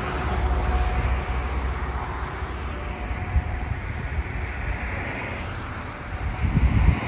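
Outdoor traffic noise: vehicles running past on the road by the parking lot, a steady wash of noise. Wind buffets the microphone in low rumbling gusts near the end.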